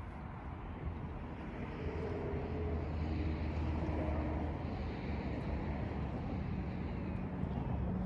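A steady engine drone that slowly grows louder.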